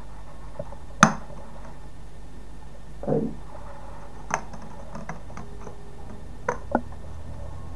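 Clicks and taps of a compact disc being pressed and shifted on the plastic tray hub of a CD digipak: one sharp loud click about a second in, a duller knock near three seconds, and a few lighter clicks later, two of them close together near the end, over a steady low hum.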